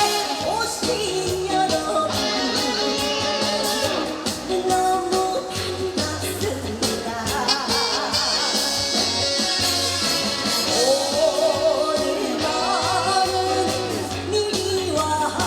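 Korean trot music playing, with a steady bass beat under a wavering melody line.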